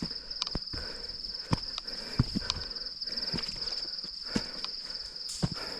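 A steady, high-pitched insect chorus with a fine rapid pulsing, over irregular footsteps and knocks of a hiker stepping over rocks and forest floor, a few per second.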